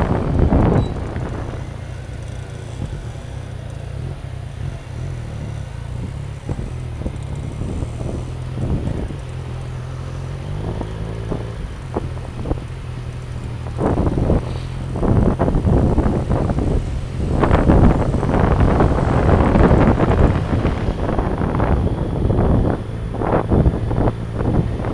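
Motorcycle engine running while riding, a low steady hum whose pitch shifts in steps around the middle, with wind buffeting the microphone in heavy gusts through the second half.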